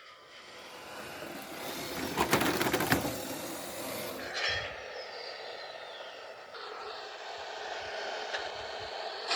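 Electric motors of a Lego Technic remote-control vehicle running as it drives, with a few sharp knocks a couple of seconds in and again after about four seconds.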